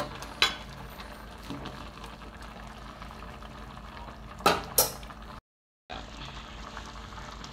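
A pot of basmati rice and vegetables bubbling steadily at the boil, the rice nearly cooked. A few sharp knocks cut in, one just after the start and two close together about two-thirds through. The sound drops out for a moment soon after.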